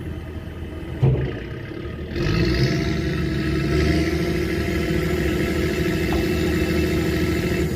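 A mechanized fishing trawler's engine running with a steady low rumble and one knock about a second in. About two seconds in, a louder steady machine drone with a held whine sets in suddenly, as the trawl net is being shot.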